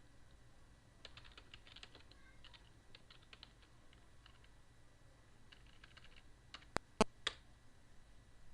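Computer keyboard typing in several short runs of light key clicks, followed near the end by three louder, sharper clicks, the middle one the loudest.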